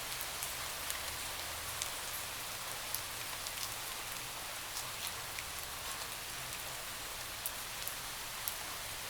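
Steady rain falling on a window: an even hiss of rain, with single drops ticking sharply here and there.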